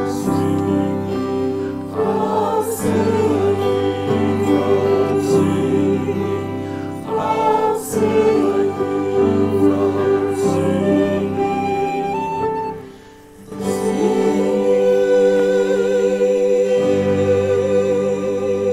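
Christian church music: voices singing with instrumental accompaniment, with a brief pause about thirteen seconds in.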